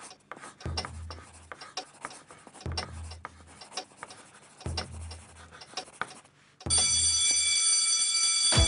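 Scratchy writing sounds, like pencil or chalk on a surface, over a short low thud that repeats about every two seconds. About seven seconds in, a loud bell starts ringing steadily.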